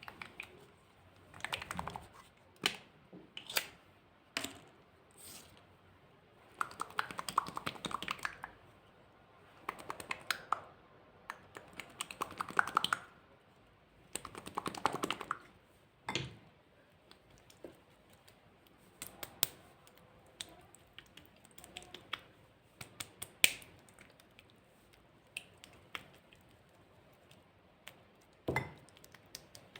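Slime being stirred and squished by hand: several bursts of dense, sticky crackling and clicking, with single sharp clicks between them.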